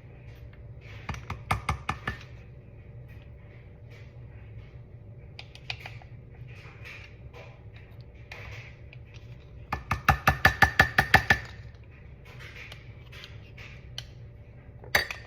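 A spoon tapping against a ceramic mug, ringing briefly with each tap, as yogurt is knocked off it into the cake batter. There are two quick runs of taps: about five near the start and about ten faster ones around the middle.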